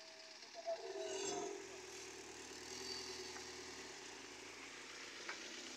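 A vehicle engine idling with a steady low hum, which sets in about a second in after a short knock.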